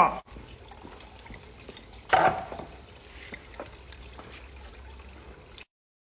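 Water trickling steadily along a stainless-steel flowing-water noodle trough, with one brief louder noise about two seconds in. The sound cuts off suddenly shortly before the end.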